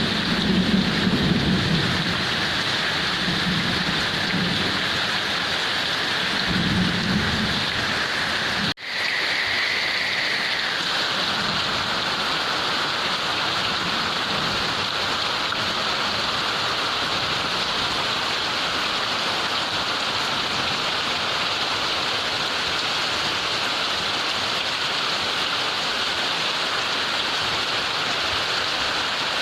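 Heavy rain falling steadily, with thunder rumbling low underneath for the first eight or nine seconds. The track then cuts out for an instant, as at a loop or edit point, and the rain goes on without the thunder.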